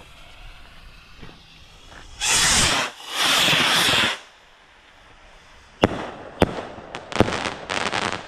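Comet Goldrush stick rockets launching with two loud rushing hisses about two seconds in. About six seconds in come three sharp bangs as the rockets burst, followed by a dense run of crackling.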